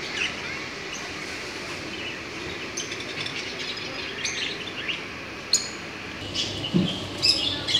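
Small caged birds, budgerigars and canaries, chirping in short high calls that come more often in the second half, over a steady background hum.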